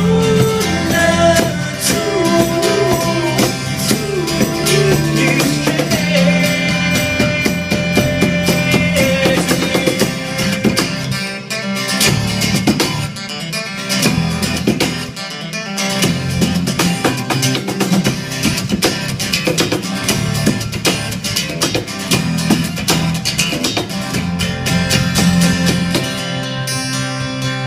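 Live acoustic rock band playing an instrumental break: acoustic guitar strumming over bass, with a melody line that bends in pitch during the first several seconds.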